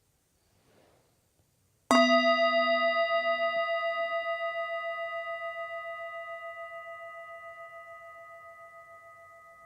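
A meditation singing bowl struck once, about two seconds in, then ringing on with several steady tones that fade slowly with a wavering, pulsing beat; the ring marks the end of the yawning round.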